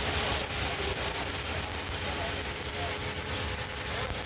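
Electric arc welding: the arc gives a steady hiss over a low electrical hum.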